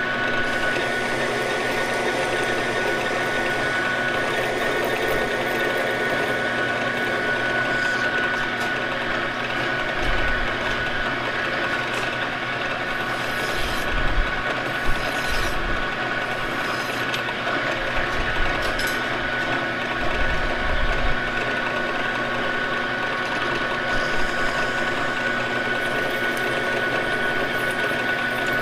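Victor engine lathe running steadily with a high whine, spinning a small steel shaft. Around the middle a hand file is drawn across the turning shaft in several short scraping strokes.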